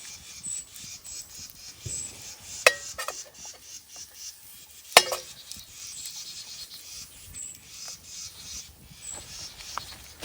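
A cooking utensil scraping and clinking against a frying pan over a campfire, with two sharp metallic clinks about three and five seconds in.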